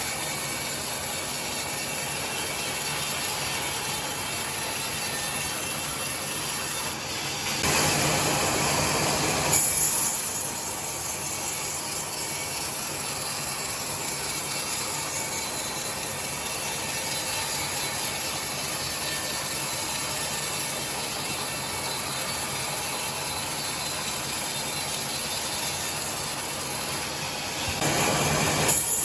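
Sawmill saw running steadily while ripping timber into boards, with two louder passages of a couple of seconds, about a third of the way in and near the end.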